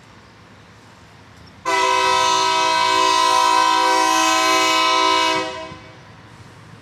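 Train air horn sounding one long, steady blast of several notes together, starting about a second and a half in, lasting about four seconds and then cut off. A faint low rumble runs underneath before and after.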